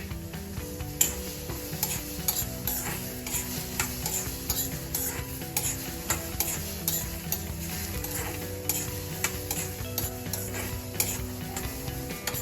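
Dry kidney beans (rajma) being stirred as they roast in a kadhai, the beans clattering and the spatula scraping the pan in irregular strokes, about one or two a second.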